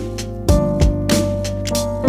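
Instrumental ringtone music: a melody of held notes over a steady low bass, with drum hits.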